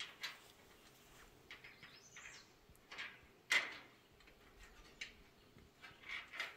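Sporadic light knocks and clanks of a metal hardtop gazebo's roof cap being handled and fitted onto the steel roof panels, the loudest about three and a half seconds in. A bird chirps faintly about two seconds in.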